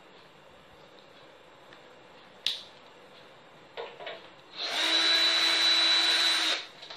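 A small handheld power drill-driver runs for about two seconds with a steady whine and stops abruptly, backing screws out of the amplifier's casing during disassembly. A sharp click and a couple of light knocks of handling come before it.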